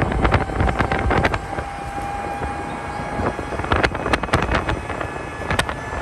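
Wind buffeting the microphone of a moving small car, with road and tyre noise underneath, many sharp crackles from gusts hitting the mic, and a faint steady whine.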